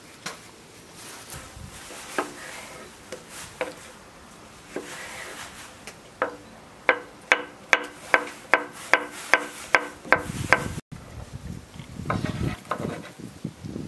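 Kitchen knife cutting cucumber on a wooden cutting board: a few scattered cuts, then a steady run of chops about two or three a second, each a sharp knock on the wood. Near the end, a rougher scraping as the knife pushes the diced pieces across the board.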